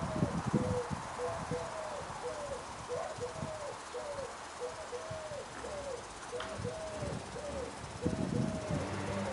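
An animal calling: a quick, even series of short hooting notes, each rising and falling in pitch, about two or three a second.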